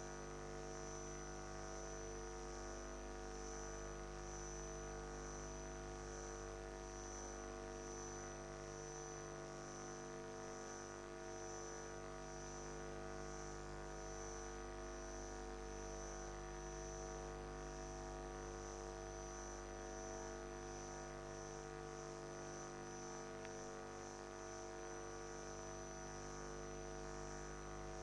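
Steady electronic hum or drone: several held tones at once, with a high whine that pulses evenly throughout.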